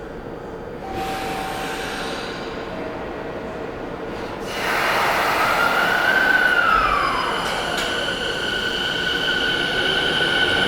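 Tokyo Waterfront Area Rapid Transit 70-000 series electric train starting away from an underground platform. About four and a half seconds in the sound jumps up suddenly, with a tone that rises and then falls. Steady whining tones follow, and rising tones begin near the end as the train gathers speed.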